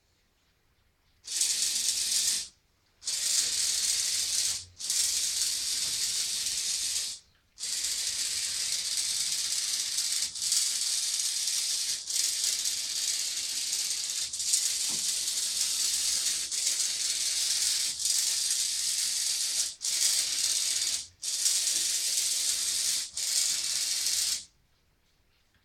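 Electric motors and plastic gear trains of a small LEGO Technic drawing robot running with a high, rattling whir. The whir comes in runs of a few seconds, broken by about ten brief stops as the robot drives and turns under control.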